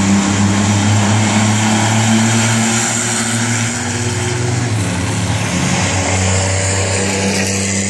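V6 banger stock cars racing on the oval, engines running hard in a steady drone whose note shifts about halfway through as the cars go by.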